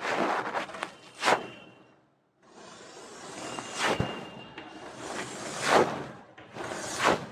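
Chalk rubbing and scraping across a chalkboard in repeated shading strokes, with a few sharper swishes and a brief silent break about two seconds in.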